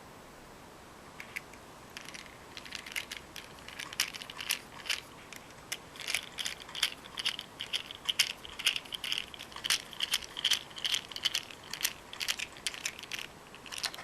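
Dense, irregular small clicks and ticks of a compact digital camera's small metal and plastic parts and a precision screwdriver being worked by hand while the camera body is reassembled. They start about a second in and thicken toward the middle.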